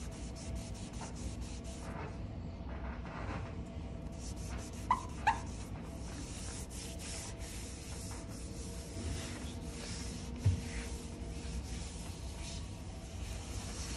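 Cloth rubbed back and forth in quick strokes over the painted steel of a 1972 Chevy C10's cab. There are two short squeaks about five seconds in and a single thump near the ten-second mark.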